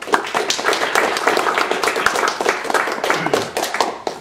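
Audience applauding: many people clapping together, dying down near the end.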